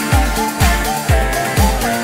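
Background music with a steady kick-drum beat, about two beats a second, under a melody line.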